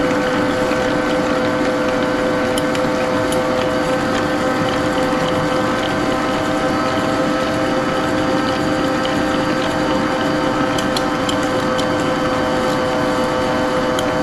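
Electric stand mixer running steadily on low with an even motor hum, its beaters churning thin cake batter while dry ingredients are spooned in. A few faint clicks sound over the hum.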